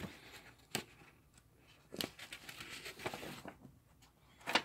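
Paper instruction sheet being handled: soft rustling with a few sharp ticks, the loudest near the end.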